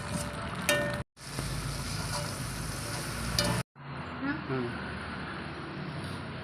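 Hot oil sizzling in a frying pan as food fries, a steady crackling hiss, cut off briefly twice, at about one second and again near four seconds.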